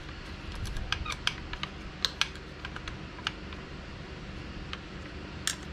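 Light, irregular metal clicks and taps of bolts and a hand tool being worked at a mountain bike's rear disc brake caliper mount, most of them in the first couple of seconds and a quick cluster near the end, over a low steady hum.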